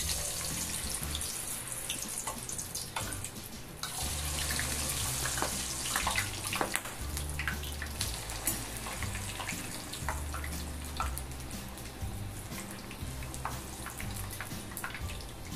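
Raw potato pieces sizzling and crackling as they are lowered into very hot frying fat in a steel pot, with the hiss swelling again about four seconds in as another ladleful goes in. A few sharp metal clinks from the ladle and skimmer against the pot.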